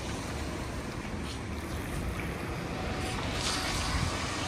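Wind buffeting the microphone: a steady rushing noise with an uneven low rumble and brief gusty surges.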